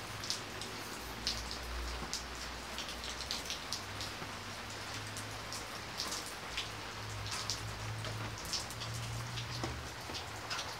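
Steady rain falling on a wet street, an even hiss with frequent sharp ticks of single drops, over a faint low hum.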